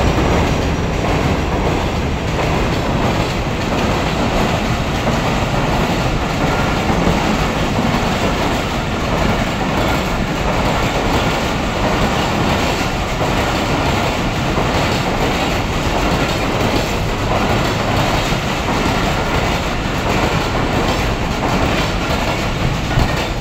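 Pak Business Express passenger coaches running past at speed behind a GMU-30 diesel locomotive, a steady unbroken noise of steel wheels on the rails.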